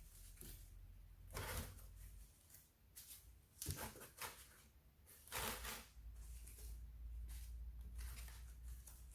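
Packing noises: a few brief rustles and scrapes of packaging being handled, about four in all, over a faint low hum.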